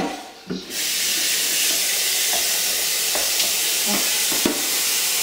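Kitchen tap turned on about a second in and running steadily, cold water pouring over potatoes in a pot, with a few short knocks.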